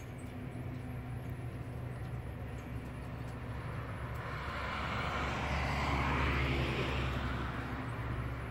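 A passing vehicle: its noise swells, is loudest about six seconds in, then fades, over a steady low hum.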